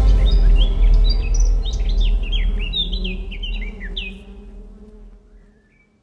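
Birds chirping in a quick run of short, falling notes over a bee's steady low buzz and a deep rumble; the chirps stop about four seconds in and the rest fades out.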